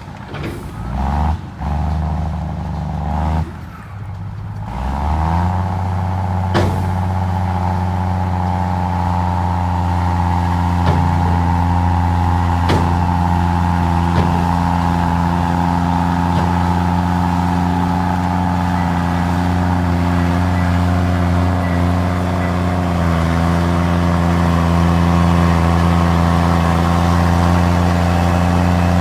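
Komatsu D53E crawler bulldozer's diesel engine running steadily under load, with a few sharp metallic clanks. In the first few seconds the sound breaks off and resumes abruptly several times, then it runs unbroken and grows a little louder past the middle.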